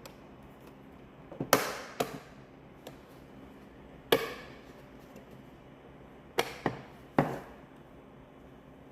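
Sharp plastic clicks and snaps, about six spread over several seconds, as the bezel of a Ferrari 458 instrument cluster is pressed onto its housing and its clips are pushed into place.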